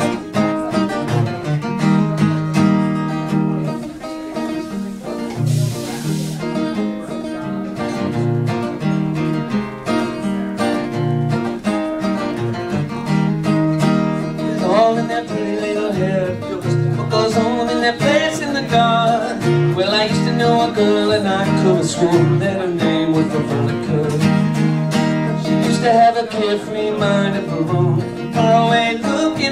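Acoustic guitar strummed and picked in a country-folk style. From about halfway through, a man sings over it.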